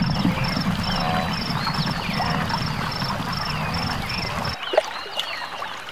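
Wildebeest herd on the move: a dense low rumble with scattered short calls and a high chirp repeating about three times a second. It cuts off suddenly about four and a half seconds in, giving way to quieter river ambience with a few gliding calls.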